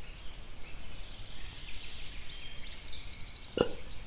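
Birds chirping and trilling faintly in the background over a steady hiss, with one sharp computer-mouse click about three and a half seconds in.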